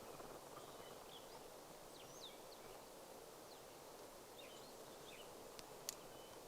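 Faint outdoor ambience with distant small birds calling: scattered short chirps and quick whistled notes, with two sharp clicks a little before the end.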